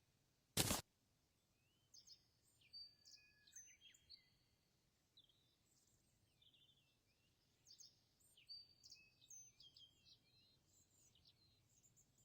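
Faint bird chirps and short whistled calls in the background, scattered through most of the stretch, with one brief loud noise burst about half a second in.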